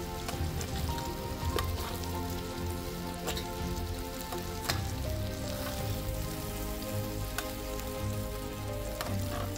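Food sizzling steadily on a propane flat-top griddle, with several sharp clinks of a metal utensil against a stainless steel mixing bowl.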